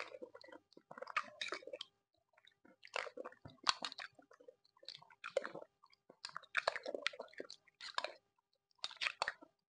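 A person eating spoonfuls of red gelatin: wet chewing and mouth noises come in about half a dozen short bursts, with brief silences between them.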